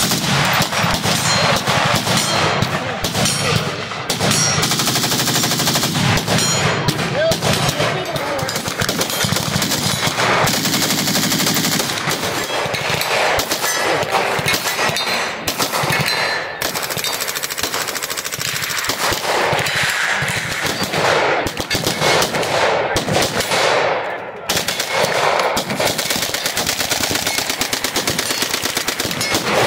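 Fully automatic gunfire: rapid bursts from several different machine guns and submachine guns fired one after another, with short breaks between shooters.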